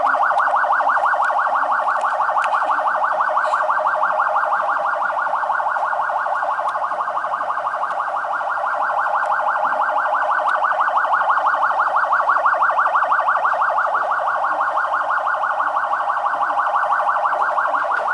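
Electronic siren sounding a fast, steady pulsing tone, many pulses a second, held at one pitch.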